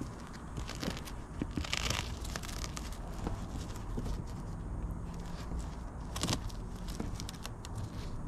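Fabric curtain rustling as a hand presses its Velcro (hook-and-loop) edge onto the van's side trim, with scattered small clicks and a short rasp about two seconds in and another after about six seconds.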